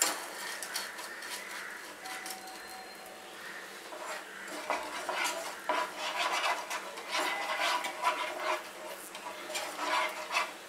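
A wooden spatula stirring and scraping sugar around a non-stick frying pan as the sugar melts to syrup, with irregular clicks and scrapes against the pan that come thicker in the second half.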